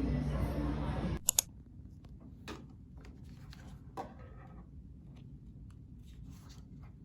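A low, steady rumbling background noise cuts off abruptly about a second in. A few sharp clicks and light taps follow, small objects being handled in a quiet room.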